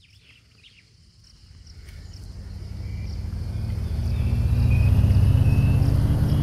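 An engine running and growing steadily louder over about five seconds, as if coming closer, with faint high chirps of birds or insects above it.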